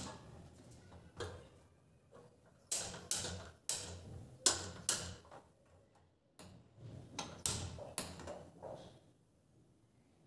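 Sharp clicks from a gas stove's burner knob and a hand-held spark gas lighter as the burners are turned and lit, in two short groups of a few clicks each.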